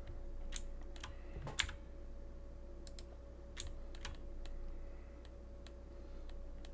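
Irregular, scattered clicks of a computer keyboard and mouse: key presses, mouse-button clicks and scroll-wheel notches, over a faint steady hum.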